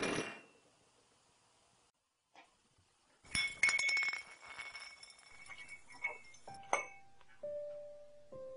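Frosted incandescent light bulb dropped onto a hard floor: it hits and bounces with several glassy clinks that ring briefly, without shattering. Soft single musical notes begin near the end.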